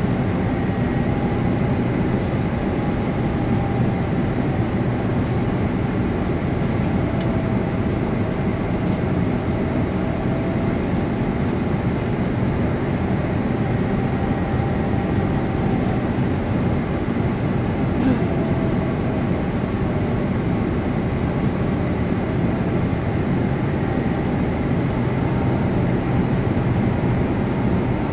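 Cabin noise inside an ANA Boeing 787-9 airliner in flight: the steady rush of its Rolls-Royce Trent 1000 jet engines and the airflow past the fuselage, with a faint tone that slowly wavers up and down.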